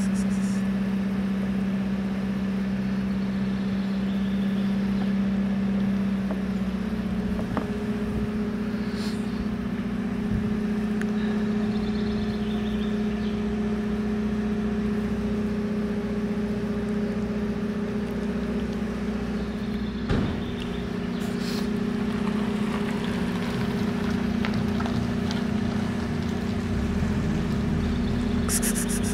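A steady, low motor hum with a clear pitch, like an idling engine, that steps slightly up in pitch about six and a half seconds in.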